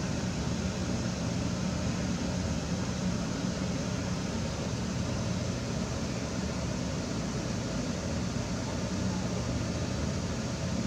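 Steady background noise with a low hum, like a distant machine or ventilation, unchanging throughout; no distinct animal call or impact.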